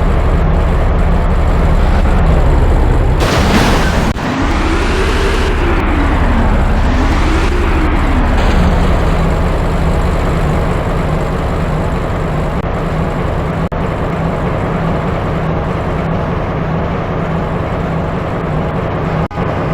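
Road traffic with a steady low rumble. About three seconds in there is a short loud hiss, then an engine's pitch rises and falls twice as a vehicle speeds up and eases off.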